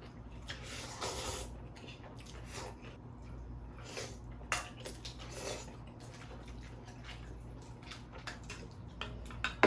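People eating spicy cold noodles: wet slurping and chewing in short bursts, the longest a slurp about a second in, over a low steady hum.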